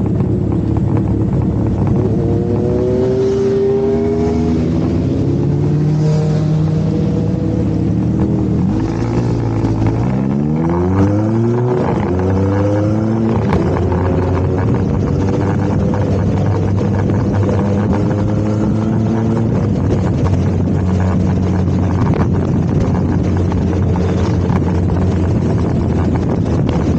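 Motorcycle engine running while riding, with wind rush; its pitch rises as it accelerates about ten seconds in, then holds steady.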